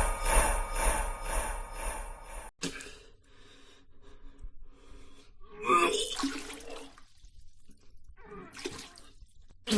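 Vomiting sound effect: a person retching and throwing up in several irregular heaves, with gasping and a wet splashing sound; the loudest heave comes about halfway through. It begins after a dense, pulsing sound effect cuts off sharply about two and a half seconds in.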